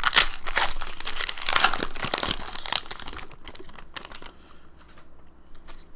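Foil wrapper of a Pokémon Burning Shadows booster pack crinkling and tearing as it is ripped open. It is loudest in the first two and a half seconds, then fades to a few light rustles and clicks.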